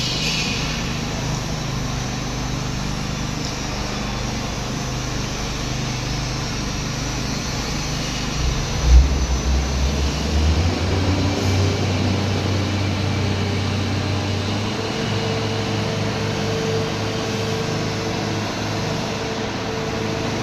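Engine-driven power trowel running steadily while finishing a concrete floor. About nine seconds in there is a brief low thump, after which the engine note rises.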